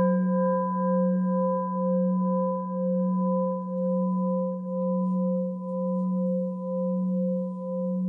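A singing bowl ringing after a single strike: a deep steady hum with fainter higher overtones that fade, wavering slowly and regularly in loudness.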